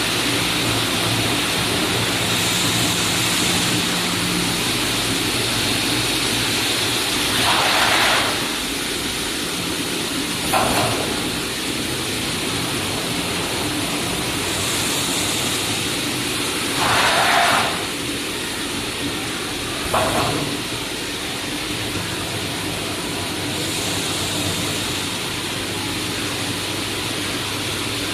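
Automatic tarpaulin welding, eyelet-punching and cutting machine line running with a steady machine hum, broken by short hissing bursts: a longer burst and then a shorter one a couple of seconds later, the pair repeating about every ten seconds.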